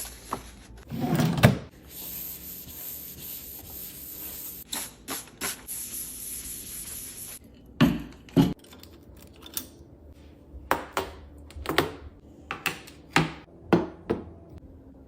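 Things being handled and set down on a desk: scattered knocks and clicks, with a stretch of steady rubbing from about two to seven seconds in.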